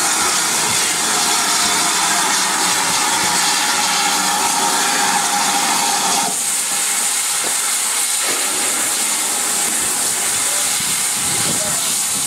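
Steam locomotive standing with steam hissing out, a loud, steady hiss. About halfway through, the lower part of the hiss cuts off suddenly, leaving a thinner, higher hiss.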